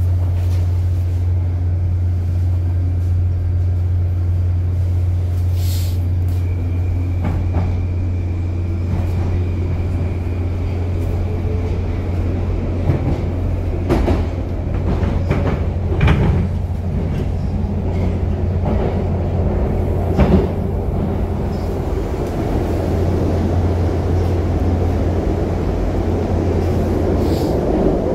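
Moscow Metro train running between stations, heard from inside the carriage: a steady low hum under continuous wheel-and-rail rumble, with a few sharp knocks around the middle. The rumble grows louder near the end.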